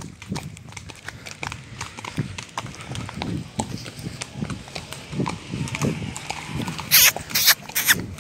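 Hoofbeats of horses running on a dirt trail, heard from the saddle as a quick, uneven run of knocks, with a few loud sharp noises near the end.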